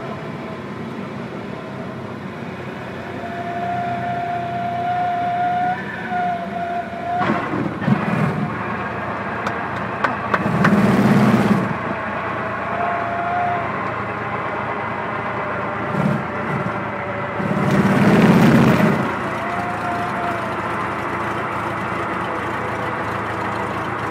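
Cabin noise of a Cessna 172 landing: the engine running at low power under a steady rush of air, with a steady high horn tone sounding on and off, typical of the stall warning horn in the flare. Three louder rushes cut in briefly, the longest about a second.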